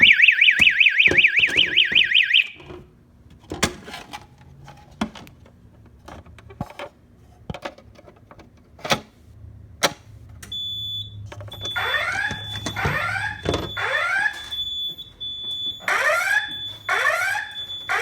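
Simplex voice-evacuation fire alarm system sounding: a loud, fast warbling alarm tone that cuts off after about two and a half seconds, then scattered clicks. From about eleven seconds in, a steady high beep starts, joined by sweeping alert tones in groups of three.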